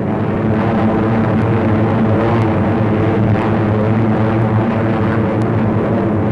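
Propeller aircraft engines running with a steady, even drone.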